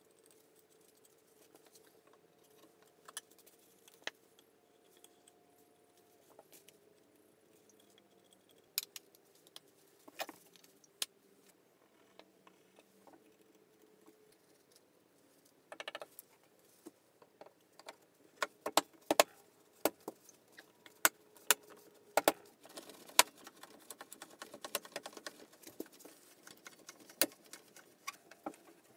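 Workshop glue-up handling noise. Scattered knocks as oak table parts are fitted together, then from about two-thirds of the way in a dense run of clicks and knocks as bar clamps are set and tightened.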